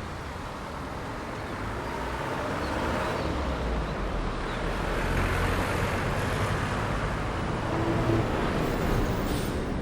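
Roadside traffic passing: a steady wash of engine and tyre noise that grows louder through the middle as vehicles go by, peaking near the end.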